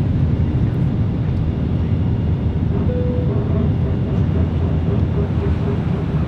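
Steady low rumble of an airliner cabin in flight: engine and airflow noise heard from inside, with a faint brief tone about three seconds in.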